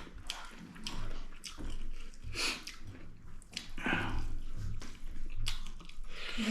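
Close-up chewing and wet mouth smacking, with irregular clicks and squelches from eating chicken meat by hand.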